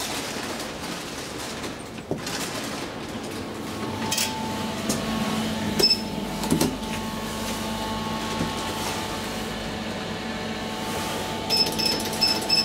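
Traction elevator running, with a steady machine hum in the car. A single short high beep comes about six seconds in, and a quick run of several high beeps near the end, as the car panel's push button is pressed.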